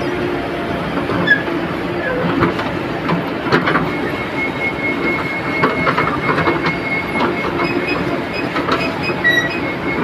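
JCB backhoe loader working: its diesel engine running steadily, with a thin high whine and scattered metallic clanks and knocks from the arm and bucket.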